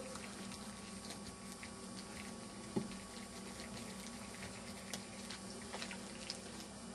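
Small screwdriver turning a tiny screw out of a mobile phone's back frame: faint scattered ticks and scrapes, with one sharper click about three seconds in.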